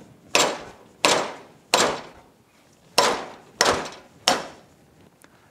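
Inner fork tube of a 2007 Honda Gold Wing GL1800 front fork being slide-hammered out of its slider: six sharp metal knocks as the tube's bushing hits the slider's bushing, each ringing briefly, stopping a little over four seconds in.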